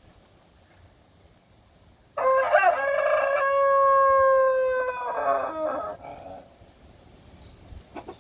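A single long, loud rooster-style crow lasting about four seconds, starting about two seconds in: choppy at first, then a long held note that falls away at the end.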